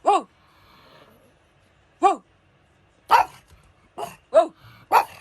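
A pug barking about six times in short single barks at an uneven pace, each bark sliding down in pitch, with one weaker bark in the middle of a quick run near the end.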